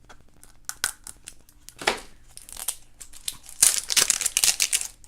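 Plastic toy blind-bag packet crinkling as it is handled and torn open: scattered crackles, then a dense burst of crinkling and tearing about three and a half seconds in, the loudest part.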